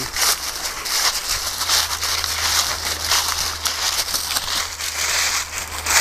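Dry leaves and undergrowth rustling and crackling, as from walking through brush, over a steady low rumble.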